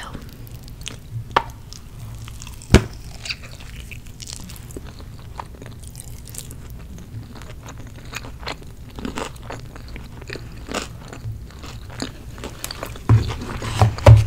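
Close-miked chewing and biting of Chick-fil-A food, with crunches and wet mouth clicks. There is a sharp crunch about three seconds in, and a burst of louder bites near the end.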